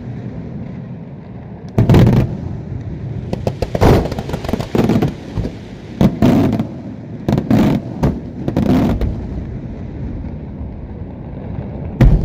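Fireworks display going off: about eight loud bangs at irregular intervals, with the last one near the end, over a steady rumble of smaller charges.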